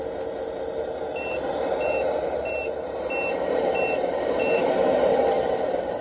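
A radio-controlled dump truck's reversing beeper sounding six short, evenly spaced high beeps, about one and a half a second, marking that the truck is in reverse. Under it runs a steady mechanical running sound that grows louder in the second half.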